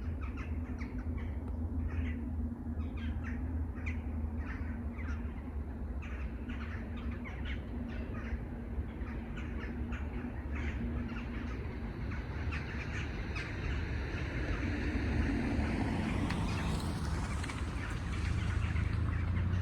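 Many crows cawing, with short calls overlapping over a steady low rumble. A rising whine swells up about fifteen seconds in.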